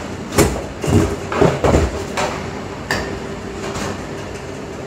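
Unboxing noises: a run of knocks, bumps and rustles in the first three seconds as the packaging and contents of a camcorder box are handled, then quieter handling, over a faint steady hum.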